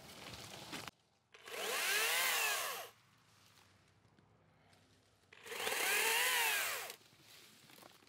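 Makita 18-volt 10-inch top-handle cordless chainsaw run in two short bursts, its electric motor whining up in pitch and winding back down each time.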